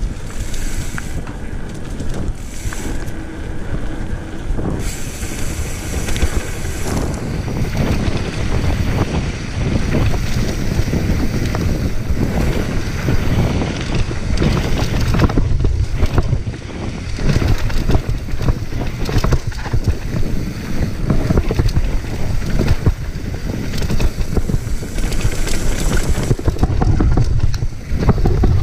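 Mountain bike descending a dirt trail: wind rushing over the camera microphone, with the tyres rolling on dirt and the bike rattling and knocking over bumps.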